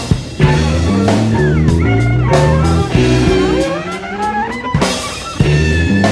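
Instrumental passage of a rock song: guitar playing gliding, bending lead notes over bass and a drum kit, ending on a held high note.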